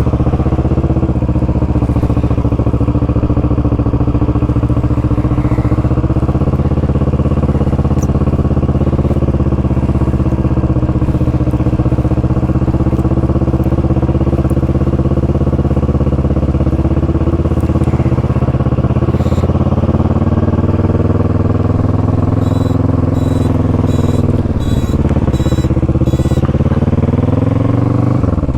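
Motorcycle engine running at a steady road speed, its note holding level for most of the stretch, then dipping and climbing again twice near the end. A row of short high ticks sounds for a few seconds near the end.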